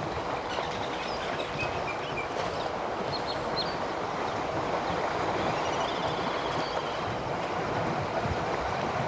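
A herd of African elephants wading and splashing through a waterhole: a steady, dense wash of churning water. A few short, high bird chirps sound over it, a cluster in the first few seconds and a quick series about two-thirds of the way in.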